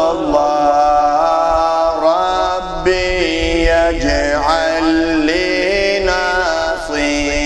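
Male voice chanting an Arabic devotional munajat in long, drawn-out notes that slide up and down in pitch.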